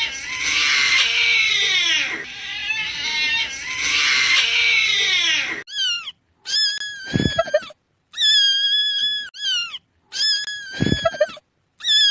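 A cat screeching in two long, harsh yowls that fall in pitch, then four separate high-pitched meows with short silences between them.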